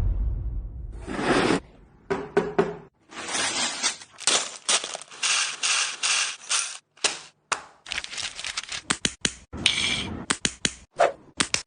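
Small plastic building bricks clattering and clicking together: irregular sharp clicks with a longer run of rattling in the middle.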